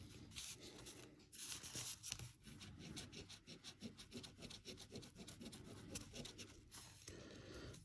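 A coin scraping the coating off a scratch-off lottery ticket: faint, quick, repeated scratching strokes.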